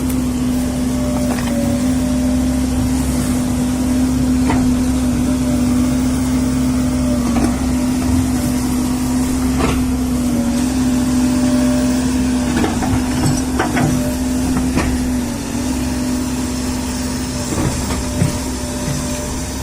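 JCB excavator's diesel engine running steadily, its pitch sagging briefly a few times as it takes load. Occasional sharp knocks and clanks come through over the engine.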